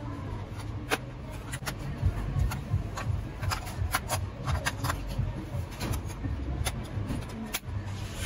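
Plastic clicks and knocks of a toy airplane's battery compartment being opened, AA batteries being fitted and the cover snapped back, with low handling rumble of the toy's plastic body.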